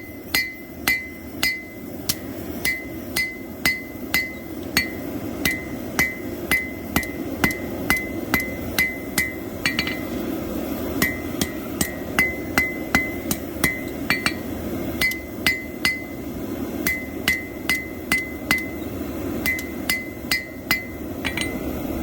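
Hand hammer striking hot plow-disc steel on an anvil, steady blows about two to three a second, each with a short metallic ring, while the knife's stem is drawn out. A few brief pauses break the rhythm. A steady low hum runs underneath.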